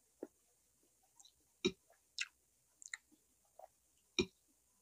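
Close-miked chewing of soft braised pork leg (pata tim) and rice: a series of separate wet mouth clicks and smacks, about one every half second to second.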